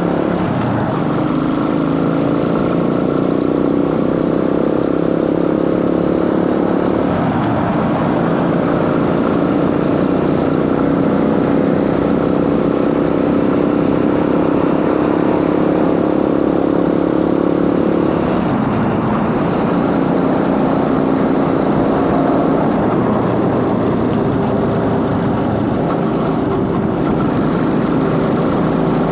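Motorcycle engine running steadily, its intake and drive chain recorded close. The engine note breaks and resettles about 7 and 18 seconds in.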